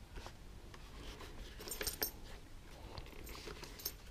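Quiet rustling and a few light clicks as hands handle a motorcycle helmet's padded fabric liner and chin strap, with small clusters of clicks about two seconds in and again near the end.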